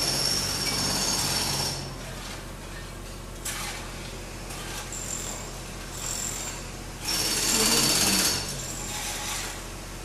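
Pneumatic hammer running in two bursts, one of about two seconds at the start and a shorter one about seven seconds in, over steady construction-site background noise.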